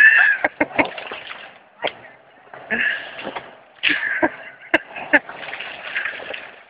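A fallen tree's limbs cracking and snapping while it is dragged, with irregular sharp snaps over a rough rustle of branches and brush.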